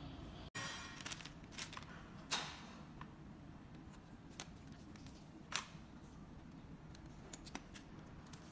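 Sharp clicks and light plastic knocks from wicker basket panels being handled and their frame rods plugged into plastic expansion tubes. The loudest click comes about two seconds in, another about five and a half seconds in, with fainter ticks between.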